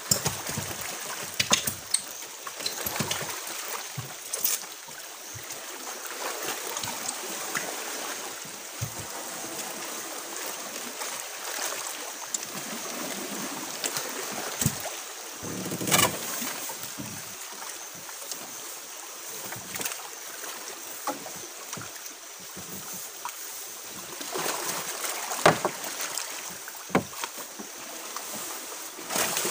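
Water sloshing against a small fishing boat's hull, with scattered knocks and rustles from a fishing net being handled and paid out over the side. The loudest knock comes about halfway through.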